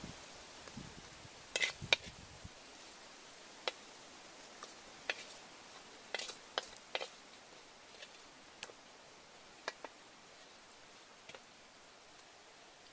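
Spatula clinking and scraping against a wok as fried eggs and pork are scooped out onto a plate: about a dozen short, sharp knocks scattered through, the loudest near the start and in the middle, over a steady hiss.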